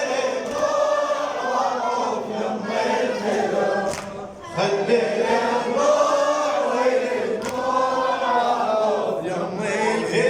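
Voices singing in chorus, a slow, held melody from a Husseini latmiya (Shia mourning elegy), with a short break about four seconds in.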